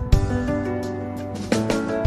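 Background music: sustained pitched notes with a light steady beat.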